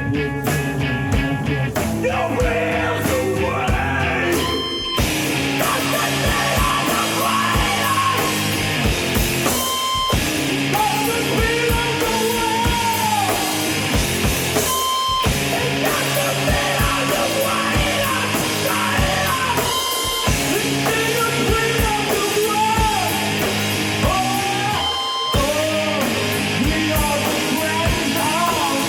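A rock band playing live: electric guitar, a drum kit and sung, partly yelled vocals in a grunge/noise-rock style. The band breaks off briefly about every five seconds.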